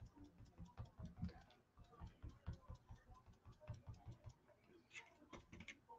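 Faint, quick, irregular taps of a makeup sponge being pounced straight down through a stencil onto a wooden cutout, dabbing on a light coat of paint.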